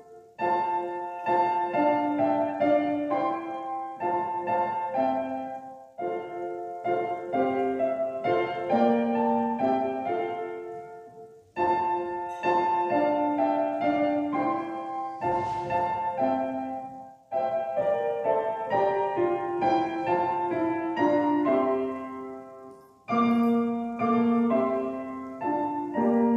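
Solo piano playing slow music in phrases. Each phrase fades away before the next begins, about every six seconds.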